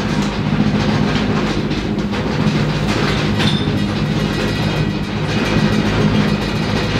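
Aircraft engines droning overhead as a theatre sound effect: a steady, loud, low rumble with a fluttering edge.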